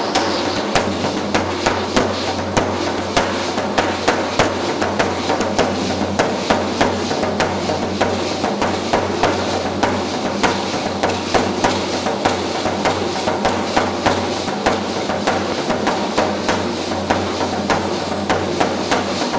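Matachines dance percussion: a steady, fast beat of sharp strikes over a continuous pitched musical backing that runs without pause.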